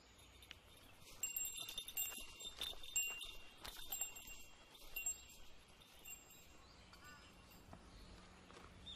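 Small chimes tinkling faintly and irregularly: several high ringing notes with light clicks, fading out after about five seconds.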